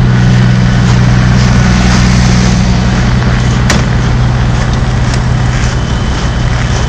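Diesel semi-truck engines idling, a steady low drone, with one sharp click near the middle.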